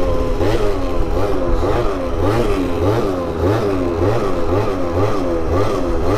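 A two-stroke scooter engine revving up and down over and over, about twice a second, each blip a quick rise in pitch.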